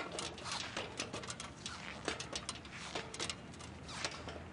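A run of light, sharp clicks and taps, several a second at an uneven pace, over a faint steady background.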